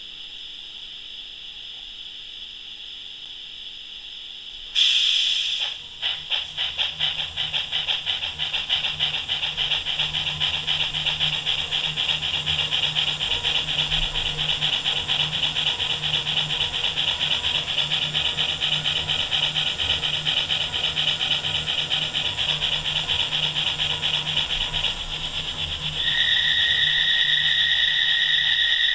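Sampled steam-locomotive sound from an ESU LokSound 3.5 decoder through the small capsule speaker of a Regner Kathi model field-railway loco: a steady soft steam hiss, a loud blast of steam about five seconds in, then rhythmic chuffing that quickens as the loco runs, over a low hum. Near the end the chuffing gives way to a steady high tone.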